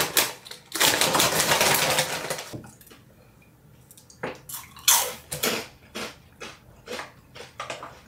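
A crinkly plastic bag of spicy shrimp chips being opened and rummaged for about two seconds. After a short pause come the crisp crunches of the chips being bitten and chewed.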